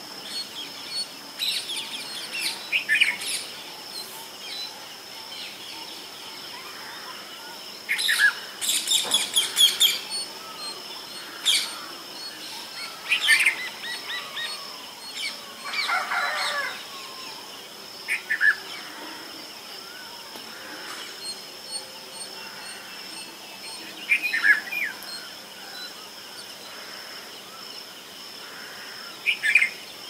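Red-vented bulbuls calling: short bursts of chirpy notes every few seconds, with a longer, denser run of calls about eight seconds in. A thin, steady high tone runs underneath.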